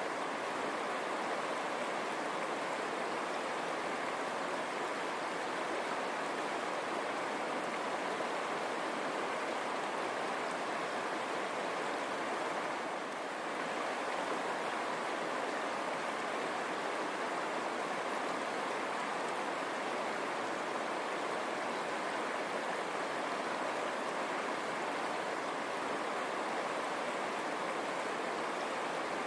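River water running and splashing over stones, a steady rushing flow.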